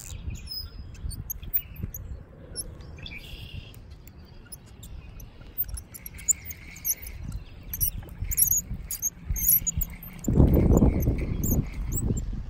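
Birds chirping and calling, with many short high chirps. About ten seconds in, a loud low rustling rubs against the microphone for a second or two.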